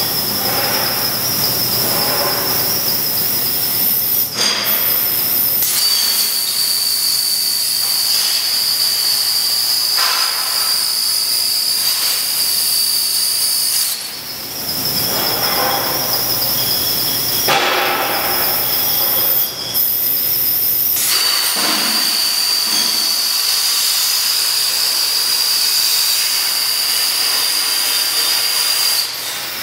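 Messer CNC plasma cutting torch cutting steel plate: a loud steady hiss with a high-pitched whine, breaking off briefly about four times and starting again.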